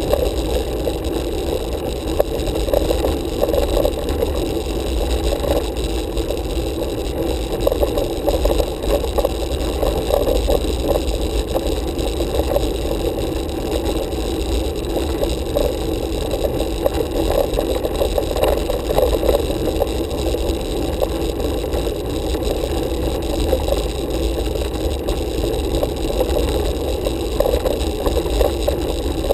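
Steady, muffled rumble of a road bicycle riding uphill, heard through a handlebar-mounted camera: tyres on tarmac and road vibration, with air rushing over the microphone.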